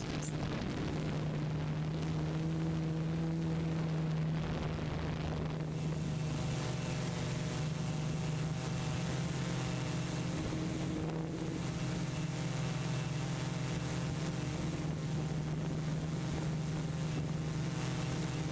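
Steady low droning machine hum: one low pitch with fainter overtones that waver slightly, running without a break.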